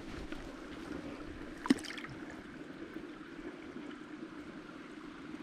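A rainbow trout released into the water: one short splash a little under two seconds in, with a few smaller clicks right after, over faint steady background noise.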